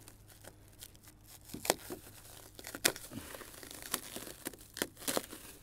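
Clear plastic wrapping being pulled, torn and crumpled off a plastic sled tub: scattered crinkling crackles with a few sharper snaps.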